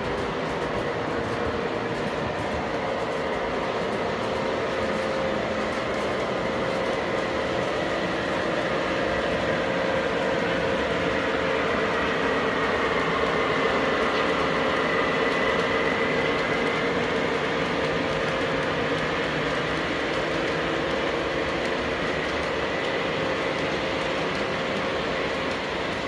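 Model Santa Fe passenger train running along layout track, its wheels and motor making a steady rolling hum. It grows a little louder, with a faint whine, as the locomotive passes about halfway through.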